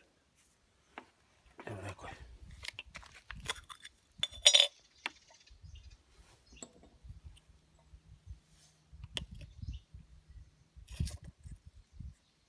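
Metal tools and parts clinking and knocking on one another, the loudest a sharp ringing metallic clink about four and a half seconds in, with scattered dull thumps.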